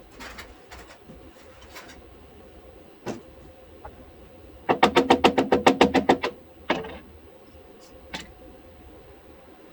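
A quick run of about fifteen sharp knocks, close to ten a second, lasting about a second and a half, with a few single knocks before and after.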